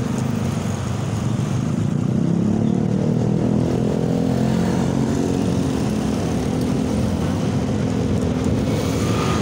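A Honda Scoopy scooter's small single-cylinder engine running steadily while riding in town traffic, heard from the rider's position with road and wind noise.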